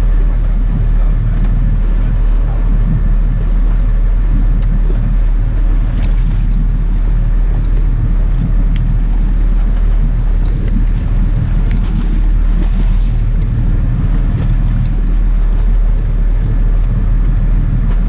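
Sport-fishing boat's engines running steadily, a low even rumble.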